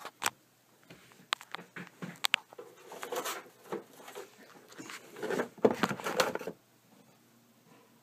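Sheet-metal parts of a desktop computer case being handled and fitted by hand: sharp clicks and knocks, then scraping and rattling, loudest between about five and six and a half seconds in, before it goes quiet.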